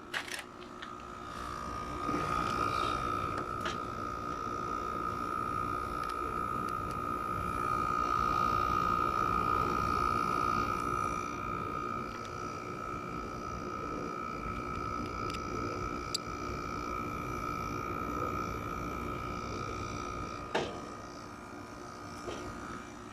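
Quasar (LG-built) 5250 BTU window air conditioner running on low fan with its LG Hero compressor on: a steady hum and rush of air with a high, steady whine over it. A single sharp click comes near the end.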